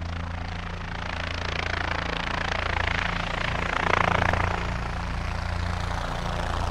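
Helicopter running steadily, a low engine and rotor sound that grows slowly louder, with a rushing noise swelling about four seconds in.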